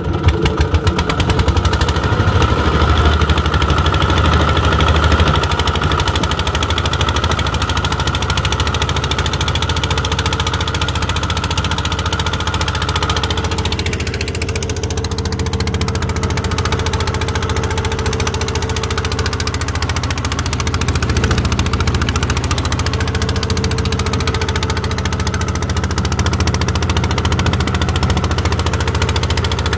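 Fishing boat's inboard engine running steadily with the boat under way; its note changes slightly about halfway through.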